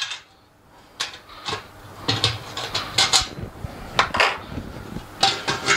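Stainless steel autoclave and its parts being handled: after a quiet first second, a string of irregular light clinks and knocks.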